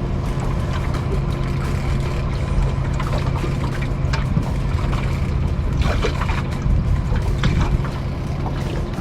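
Steady rain and wind noise on an open boat, with scattered drops ticking and a steady low hum underneath.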